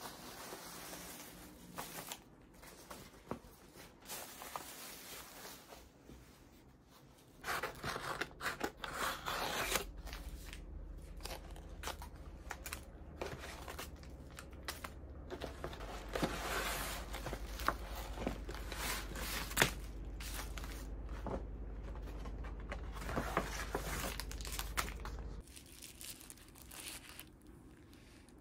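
Paper and plastic packaging rustling and crinkling in irregular bursts, with a paper mailing envelope being torn open and its plastic-wrapped contents handled; the handling gets louder about a quarter of the way in.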